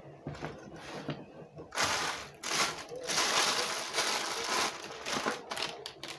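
Thin plastic bag crinkling and rustling as it is picked up and handled, loudest from about two seconds in until near five seconds.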